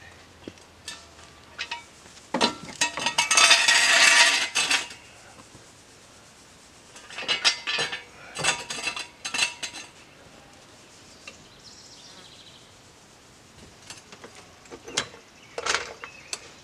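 Metal clinking and rattling from a floor jack and a steel jack stand being set under a car: a long dense run of rattling clicks a few seconds in, further bursts of clicks in the middle, and a few sharp clinks near the end.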